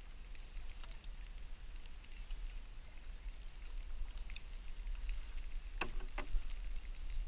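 Canoe drifting on calm water: faint scattered ticks and light water sounds over a steady low rumble. Two sharp clicks come close together about six seconds in.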